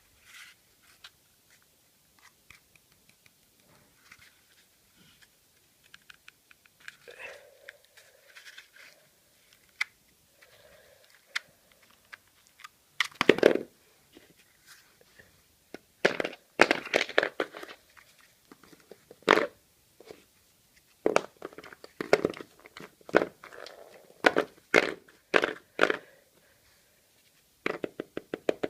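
Sheet of paper being handled, folded and creased by hand: crinkling and crackling, with short sharp strokes as folds are pressed, coming in irregular clusters that are loudest in the middle and near the end.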